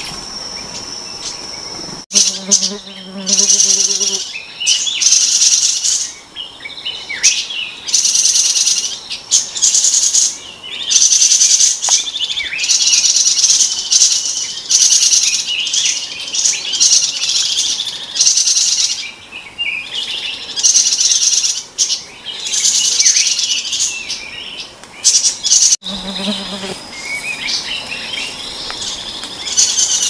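Forest insects buzzing loudly in high-pitched pulses that swell and fade every second or two, with birds chirping in between.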